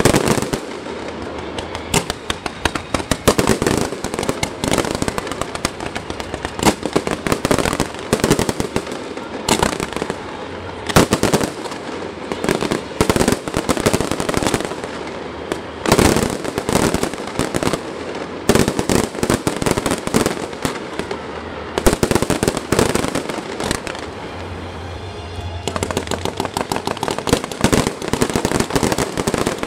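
Aerial fireworks going off in rapid succession: dense bangs and crackling with no let-up, some bursts louder than the rest.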